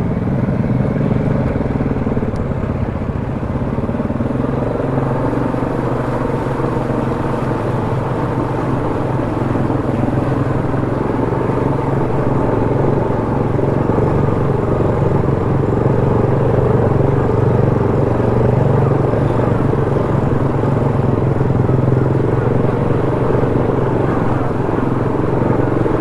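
ATV engine running steadily under way, a little louder in the second half.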